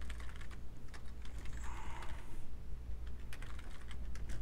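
Computer keyboard being typed on: irregular runs of key clicks as an email address and password are entered, over a steady low hum.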